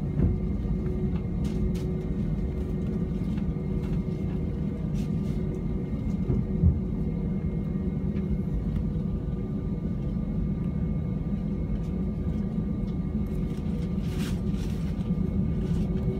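Airbus A321 cabin noise over the wing while taxiing: the steady low rumble of the engines at idle and the rolling wheels, with a few steady whining tones. There is one sharp thump about six and a half seconds in. Near the end the engine tones start to rise in pitch.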